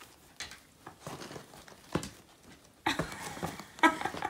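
Plush reindeer costume rustling and being handled as it is pulled onto a small dog, with a dog's noises mixed in. It gets louder and busier from about three seconds in.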